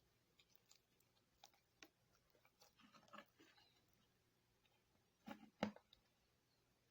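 Faint scattered clicks and small handling noises, with a louder pair of knocks about five and a half seconds in.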